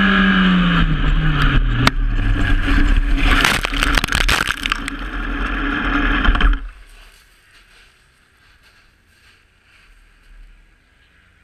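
Onboard a racing motorcycle as it crashes: the engine note falls as the revs drop, then scraping and repeated knocks as the bike goes down and slides and tumbles off the track. Everything stops suddenly about six and a half seconds in, leaving only faint wind.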